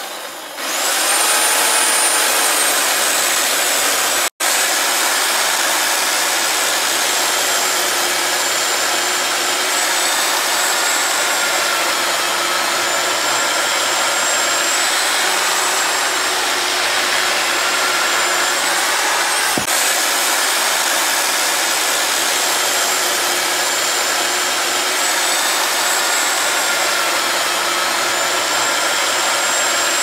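Small electric motor of a homemade toy tree cutter spinning its cutting disc with a steady high-pitched whine, rising in pitch just after the start. The sound cuts out for an instant about four seconds in.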